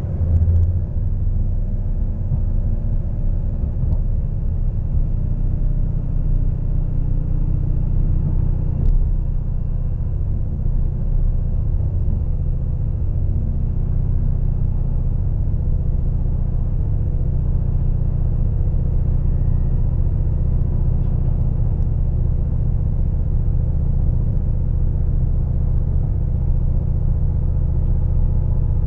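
Steady low rumble of a moving passenger train heard from inside a coach: the running noise of wheels on the track. There is a brief louder thump about half a second in and a faint click at about nine seconds.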